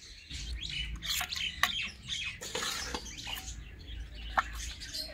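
Birds chirping and twittering in quick short calls, with a couple of sharp clicks and a low rumble underneath.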